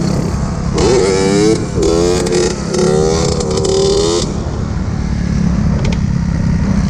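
Small motorcycle engine revved hard with a wavering pitch for about three seconds, with wind rushing past, then the throttle closes and the engine falls back to a lower, steady note.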